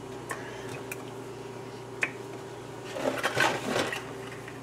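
Steady low electrical hum in a kitchen with a few light ticks, and about three seconds in, roughly a second of rustling and light clatter from things being handled.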